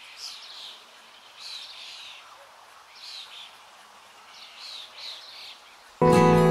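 A bird chirping in short repeated calls, a pair or so every second or two, over a faint steady hiss. Acoustic guitar music comes in suddenly at the very end.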